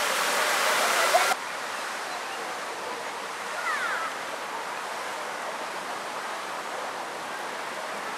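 Fountain jet spraying into a lake: a loud, steady rush of falling water that cuts off suddenly about a second in. A quieter open-air hiss follows, with a few faint chirps.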